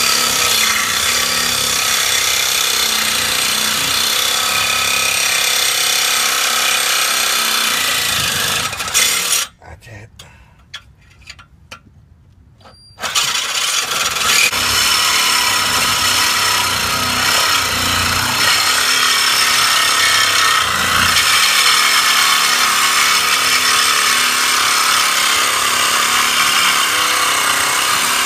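Reciprocating saw cutting through a rusty steel exhaust pipe. It cuts for about nine seconds, stops for a few seconds, then cuts steadily again.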